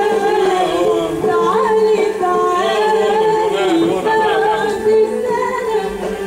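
Music with a singing voice that slides and bends in pitch over a steady held drone note.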